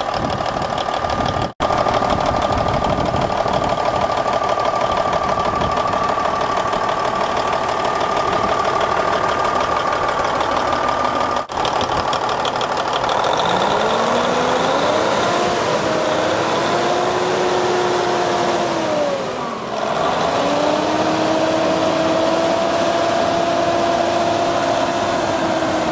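Cummins N14 inline-six turbodiesel in a Volvo VN770, running with the hood open, a steady diesel idle. About halfway through, a whine rises in pitch as the engine speed comes up. It wavers, drops briefly, then holds steady at the higher pitch.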